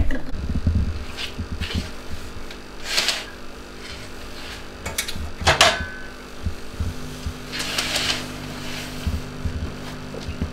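Sheer net curtain fabric rustling in a few brief swishes as it is pulled down from its rail, with some low knocks near the start, over a steady low hum.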